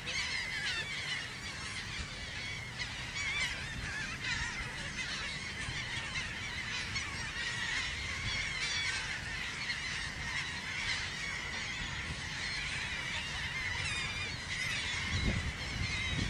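A large flock of seabirds calling over the sea, many overlapping short cries with no pause, over a low wind rumble.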